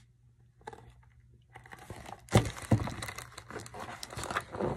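Paper pages of a large hardcover picture book rustling and crinkling as the book is lowered and a page is turned, a run of irregular crackles starting about a second and a half in, loudest a little after that.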